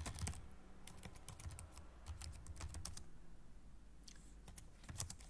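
Typing on a computer keyboard: a run of faint key clicks, a pause of about a second, then a few more keystrokes.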